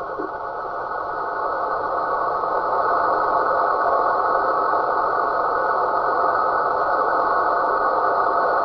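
Radio receiver audio: a steady, rushing noise-like signal, held in a narrow band of the mid range, that the uploader likens to snoring. It dips slightly at the start and then holds level.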